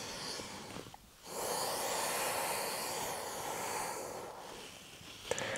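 A person breathing, with one long audible exhale of about three seconds starting just over a second in, and fainter breath before it.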